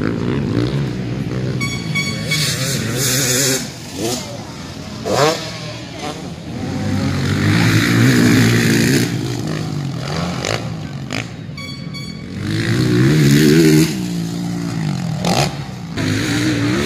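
Several motocross motorcycles racing on a dirt track, engines revving up and down as they pass, swelling loudest about halfway through and again near the end.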